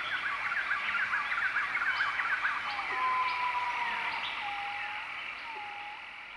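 A chorus of birds: many quick chirps and whistles overlapping, with one longer level whistle about three seconds in, over a steady high-pitched hum.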